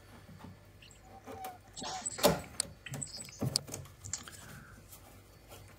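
Scattered light clicks and knocks of boiler parts and tools being handled, the loudest a little over two seconds in.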